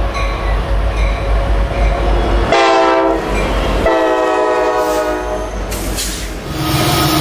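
Diesel freight locomotives leading a coal train approach and pass with a heavy engine rumble, and the multi-chime air horn sounds twice: a blast of about a second, then a longer one of about two seconds. The rolling sound of the hopper cars follows, and near the end a deeper diesel engine rumble takes over.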